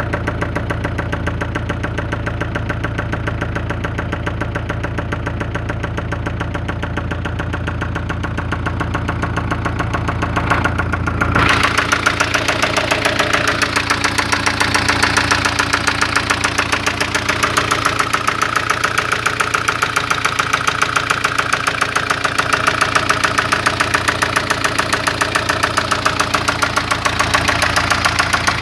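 1996 Ford Fiesta engine idling with a steady, regular knocking clatter, the loud engine noise the owner is complaining about. About eleven seconds in, the sound becomes brighter and slightly louder.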